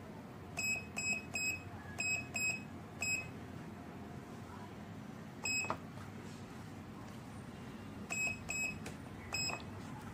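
Standalone RFID access-control keypad giving a short, high-pitched beep at each key press as a code is keyed in: about ten beeps, six in quick succession in the first three seconds, one more a little past halfway, and three near the end.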